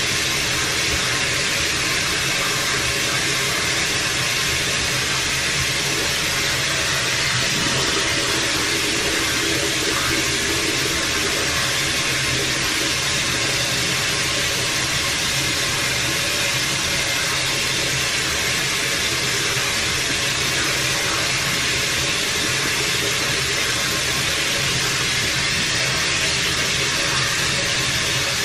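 Water running steadily in a bathroom, an even rushing hiss with no change in level.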